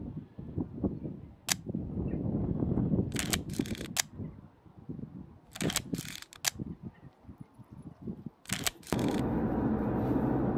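A camera shutter clicks sharply about eight times, irregularly spaced and some in quick pairs, over gusty wind rumbling on the microphone. A steadier rushing noise comes in about nine seconds in.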